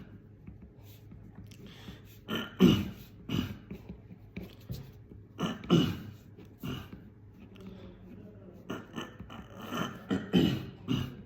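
A person clearing their throat again and again in short, harsh bursts that come in three clusters. These are the repeated noises of a throat-clearing tic.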